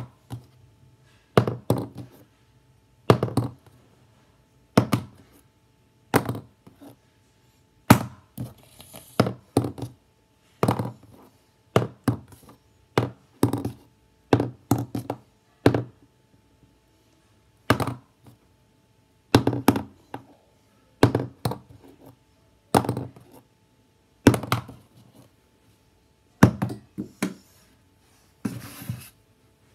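A plastic highlighter pen being flipped and landing again and again, a sharp knock roughly every one to two seconds. Many landings are followed by a quick second clatter as the pen bounces or topples over.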